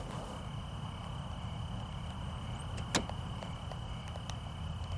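Crickets trilling in one steady high tone over a low, steady rumble, with one sharp click about three seconds in.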